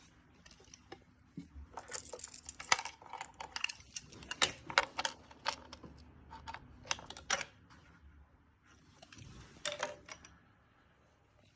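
A quick run of sharp clicks and light metallic rattles from small hard objects being handled, densest through the middle, with a last short cluster near the end.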